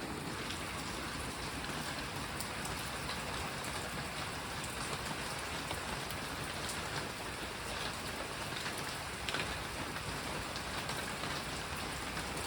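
Steady rain falling, an even hiss with scattered louder drop hits.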